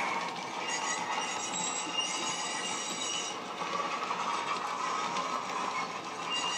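Model train wagons rolling round a curve of track, their wheels giving a steady rumble and clatter with thin high squealing tones over it.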